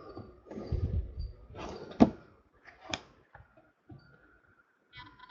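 Baseball trading cards being handled and slid against each other, with a sharp click about two seconds in and a lighter one a second later.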